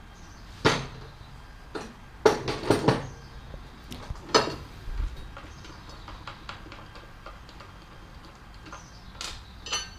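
Metal parts and hand tools clinking and knocking against a steel mower deck as it is taken apart. A few sharp knocks and a quick cluster of clinks come in the first few seconds, then lighter scattered ticks.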